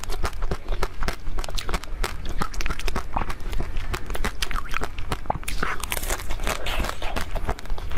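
Close-miked crunching and chewing of a frozen chocolate-coated dessert: many sharp crackles a second as the hard shell breaks in the mouth, over a steady low hum.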